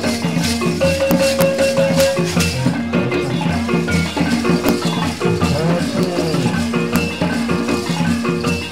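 Live traditional percussion music: drums and shaken rattles, with a repeating line of short pitched notes.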